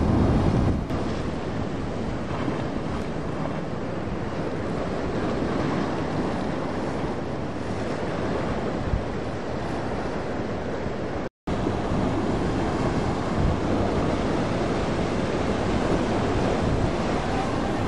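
Wind buffeting the microphone over the rush of waves and boat wakes: a steady noise, heaviest in the low end. It cuts out for an instant about eleven seconds in.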